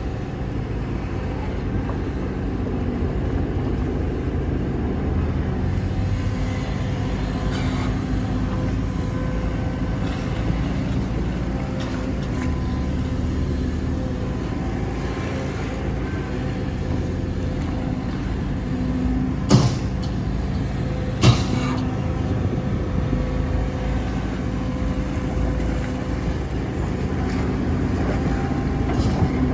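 Heavy diesel earthmoving machinery running steadily under load, with two sharp metallic knocks a little under two seconds apart past the middle.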